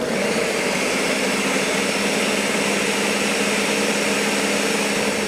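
Countertop blender switched on and running at a steady speed, churning frozen berries, banana and coconut milk into a smoothie.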